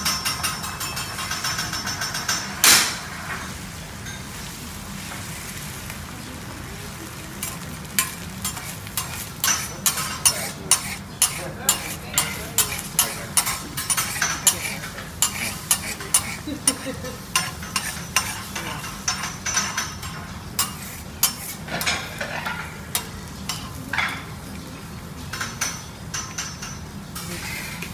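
Teppanyaki chef's metal spatula working egg on a steel griddle over a steady sizzle of frying: a quick, even run of metallic taps at the start ending in one loud clang, then, from several seconds in, a long series of sharp taps about two a second as the blade edge chops the egg against the griddle.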